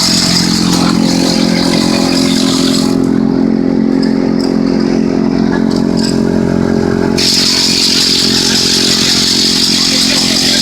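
Pencil-sharpening machine running with a steady motor hum and a high grinding hiss. The hiss stops for about four seconds in the middle and then comes back while the motor runs on.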